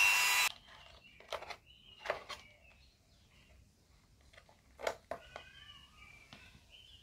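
Handheld rotary tool whining, cutting off abruptly about half a second in. Then a few light clicks and taps as a small motor is handled against the thin can-metal body, the loudest near the end, with faint bird chirps behind.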